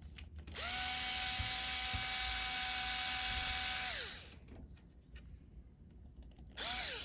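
Small electric screwdriver motor spinning up, running steadily for about three and a half seconds and winding down, then a second brief spin near the end, on the mini PC's tiny fan screws. The bit is too big for these screws.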